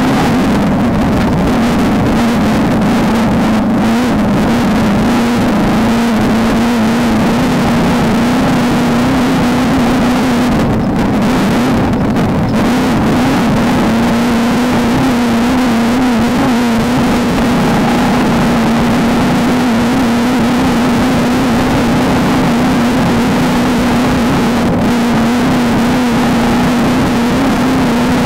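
Desert off-road race car's engine held at steady high revs, its pitch wavering slightly, under a constant rushing noise.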